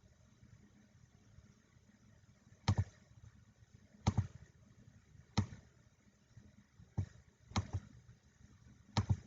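Handling noises: six short sharp knocks or taps, spaced about one to one and a half seconds apart, as card packs and boxes are handled and set down on a table during the box opening.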